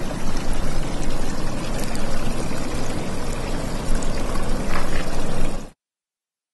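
Rushing, pouring water, a dense unbroken splashing noise that cuts off suddenly near the end.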